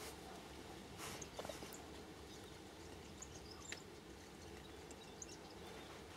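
Faint steady low hum of an old Toyota Corolla engine idling, heard from inside the cabin, with a few faint light clicks.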